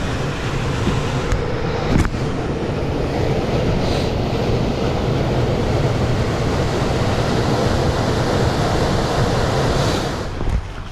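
Heat pump air handler blower running with a steady rushing of moving air. It comes up to speed as the power is restored and stops fairly abruptly near the end, with one sharp knock about two seconds in.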